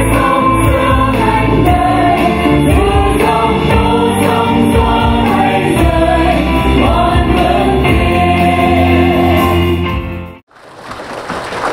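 Group of women singing a Vietnamese Christian hymn with instrumental accompaniment. The music cuts off abruptly near the end.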